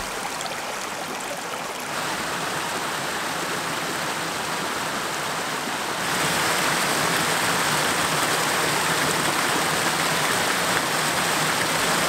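Mountain river water rushing over small waterfalls and cascades, a steady hiss. It gets louder in two steps, a little about two seconds in and more about six seconds in.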